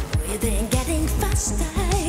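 A woman's lead vocal singing a wavering melody live with a band over a heavy, steady beat; her voice comes in about half a second in.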